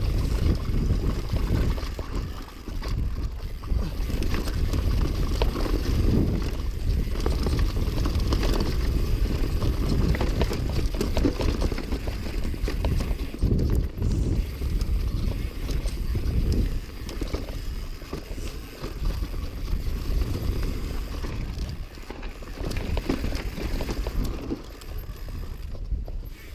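Mountain bike riding fast down a dirt forest trail: tyres rumbling over roots and stones, with constant knocking and rattling from the bike. Wind buffets the microphone.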